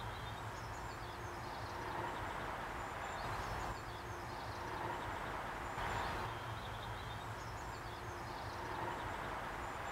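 Quiet outdoor background noise: a steady low rumble with faint high chirps of birds coming and going.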